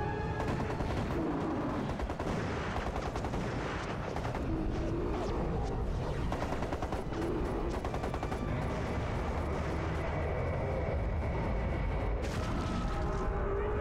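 Rapid automatic rifle fire in long bursts, thickest through the first half and flaring again near the end, over an orchestral film score.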